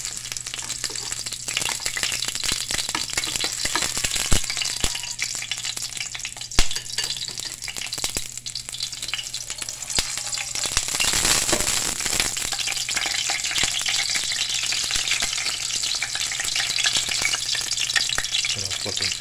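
Two small brown anoles frying in hot olive oil in a small pan, sizzling and crackling steadily, the sizzle swelling for a moment near the middle. Two sharp clicks stand out, about four and six and a half seconds in.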